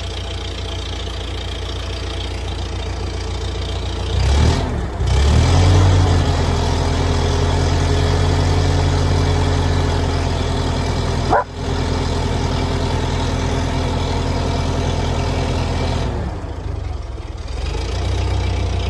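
Old machine's engine running just after starting and not yet warm: it idles, is revved up about four seconds in and held at a higher speed, hiccups briefly once, then drops back to idle near the end.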